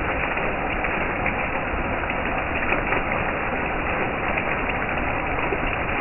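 Several thin water jets falling onto Korean earthenware onggi jars and into the holes in their lids, splashing steadily on the wet jars and the water around them.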